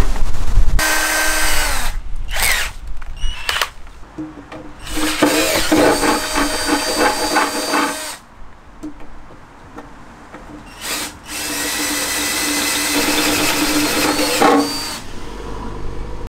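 Cordless drill-driver driving self-drilling, self-tapping wafer-head screws through timber battens, running in a series of bursts of steady whine: a few brief ones and two lasting about four seconds each.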